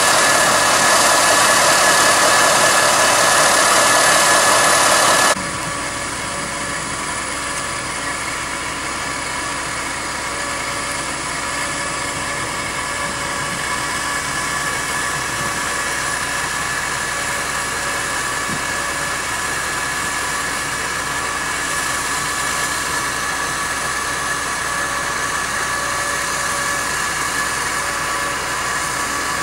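SNCF diesel shunting locomotive 69292 idling steadily, a continuous engine hum with a steady high whine. The sound is louder for about the first five seconds, then drops abruptly to a lower, even level.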